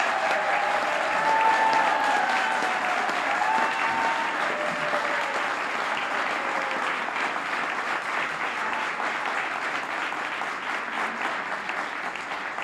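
Audience applauding, many people clapping at once, with a few voices calling out over it in the first few seconds; the applause slowly tapers off.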